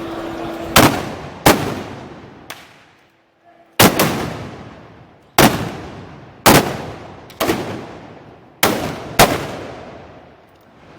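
A series of loud gunpowder shots, about eight of them, fired at irregular intervals. Each has a long echoing tail.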